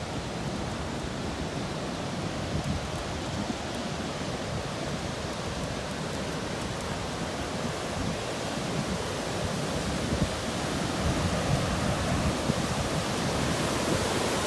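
High floodwater rushing over a river dam: a steady, even rush of falling water that grows louder over the last few seconds.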